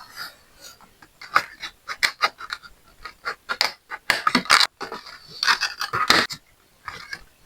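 Hands handling and opening the card-and-plastic blister packaging of a Hot Wheels die-cast car: irregular scratching, scraping and crackling with many short, sharp clicks, busiest in the second half.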